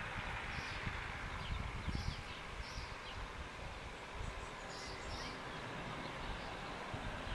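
Outdoor ambience: wind on the microphone making an uneven low rumble, with birds chirping faintly every second or two.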